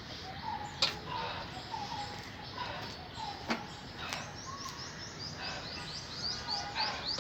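Wild birds calling: short repeated notes throughout, and from about five and a half seconds in, a quick run of high chirps, each falling in pitch. A few sharp clicks cut through, the loudest about a second in.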